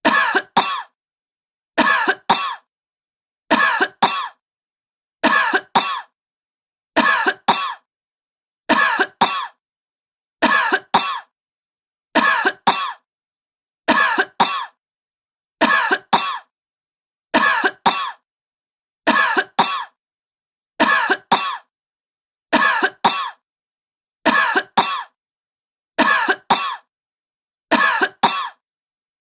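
A woman coughing, two quick coughs at a time. The same double cough repeats at even intervals, roughly every second and three-quarters, about seventeen times, with silence between.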